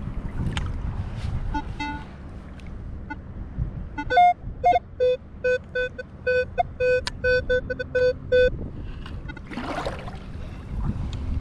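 Minelab Equinox 800 metal detector giving a rapid string of about a dozen short electronic beeps as its submerged coil is swept back and forth over a target, signalling buried metal; the first few beeps are higher-pitched. Water splashes briefly near the end as the sand scoop goes in.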